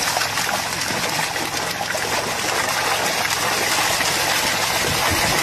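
A school of piranhas feeding in a frenzy at the surface of shallow water, a steady churning splash that grows a little louder toward the end.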